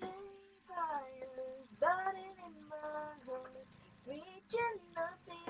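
A child singing in short phrases, some notes held steady and others sliding in pitch.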